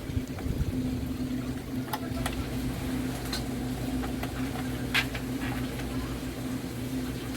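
A steady low mechanical hum, with a few light clicks and taps over it.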